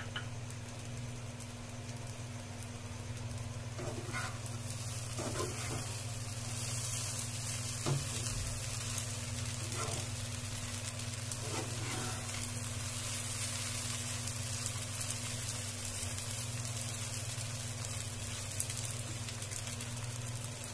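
Poha with peanuts frying in a non-stick pan, sizzling steadily, while a slotted metal spatula stirs it and scrapes and knocks against the pan every second or two. A steady low hum runs underneath.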